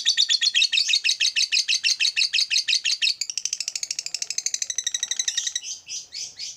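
Lovebird ngekek: a long, rapid chattering trill of sharp high notes, about ten a second. The run changes to a different run about three seconds in and breaks into slower separate chirps near the end.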